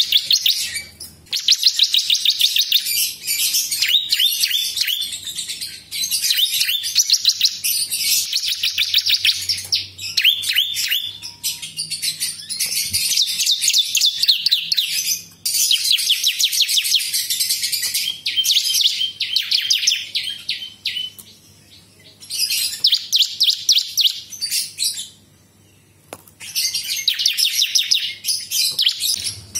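Yellow-bellied prinia (prenjak lumut) singing: a long series of fast, high-pitched trills, each phrase of rapidly repeated notes lasting a second or two, broken by short pauses.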